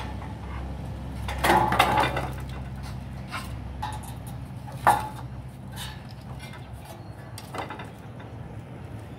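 Metal pipes and rods clinking and knocking as a dog steps among them: a cluster of clinks about one and a half seconds in, one sharp knock near the middle, then a few softer taps.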